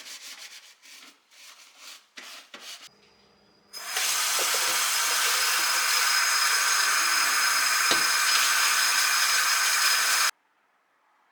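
Rapid scrubbing strokes, then a loud, steady rushing hiss with a faint high whine that starts about four seconds in and cuts off suddenly near the end.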